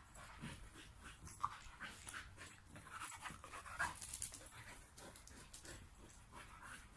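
Sprocker spaniel panting hard in short, irregular breaths, with a couple of sharper sounds about one and a half and four seconds in.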